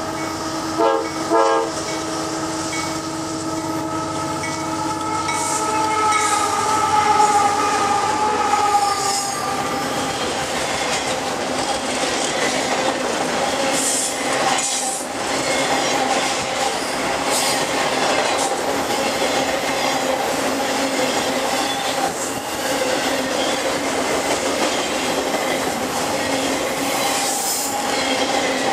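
Freight locomotive's multi-note air horn sounding as the train approaches, with two short, louder blasts about a second in. The horn drops in pitch as the locomotive passes and then stops. Autorack cars follow, rolling past with a steady rumble, clicking over rail joints and faint wheel squeal.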